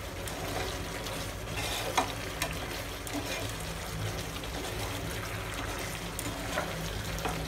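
Thick gobi manchurian gravy sizzling and bubbling in a frying pan on the heat while a slotted spatula stirs it. There are a couple of sharper scrapes of the spatula against the pan, about two seconds in and near the end.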